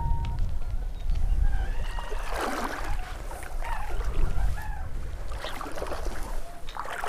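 Wind rumbling on the microphone, with several bursts of water splashing and sloshing.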